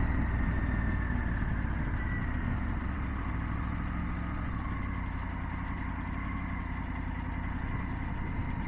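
Triumph Tiger 900's three-cylinder engine running at low revs as the motorcycle slows down in traffic: a steady low rumble that eases off gradually.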